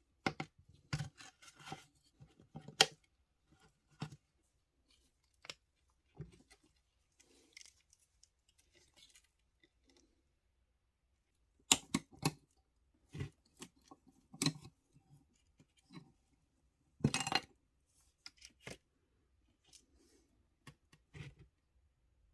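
Intermittent sharp clicks, snips and short scrapes of small hand tools working on a die-cast model car, with quiet gaps between. The busiest stretches come about a second in, around the middle, and again a few seconds later.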